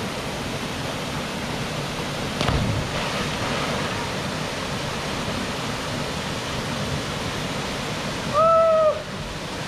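Steady rush of a large waterfall pouring into its pool. A short sharper burst comes about two and a half seconds in, and a brief loud call from a person near the end.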